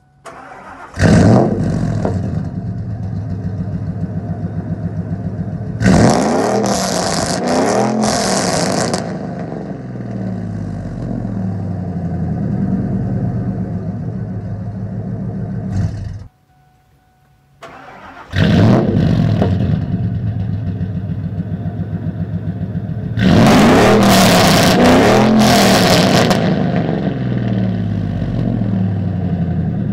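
Exhaust of a 2001 Ford F-150 fitted with long-tube headers: the engine starts with a loud flare about a second in, idles, revs up for about three seconds and drops back to idle. After a brief break it flares up again and idles, then revs up for about three seconds near the end before settling back to idle.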